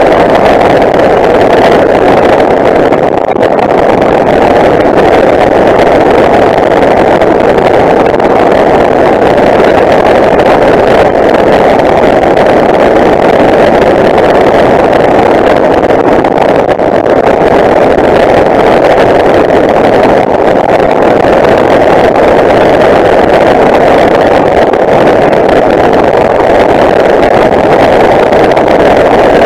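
Tanarg flexwing microlight's engine and propeller running steadily at climb power just after take-off, heard with the airflow rushing over the open cockpit.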